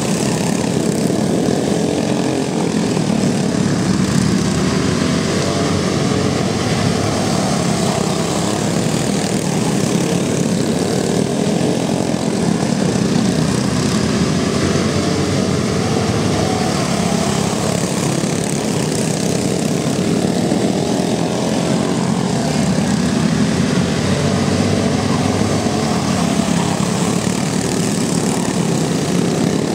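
Pack of racing go-karts with small single-cylinder Briggs & Stratton Raptor engines, many engine notes overlapping and rising and falling in pitch as the karts power through the corner and away down the track.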